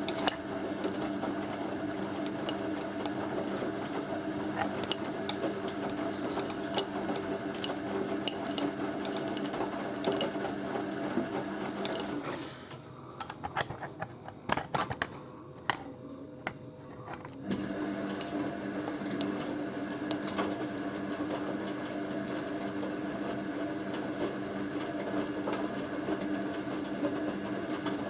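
Hoover A3060 washing machine's drum motor humming steadily as it turns the drum in the wash. About twelve seconds in, it stops for around five seconds, leaving light sloshing and clicks from the drum, then starts again: the tumble-and-pause wash action.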